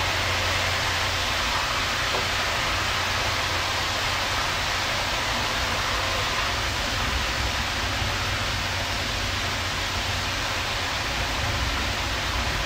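Steady sizzling of shrimp cooking in sauce in a frying pan, with a low hum underneath.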